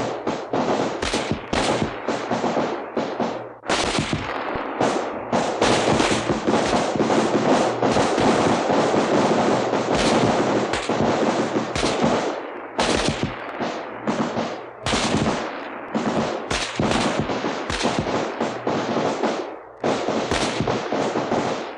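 Recorded battle sound effect of many rifles firing at will: overlapping gunshots that merge into a dense, continuous volley through the middle, then break up into separate irregular cracks toward the end.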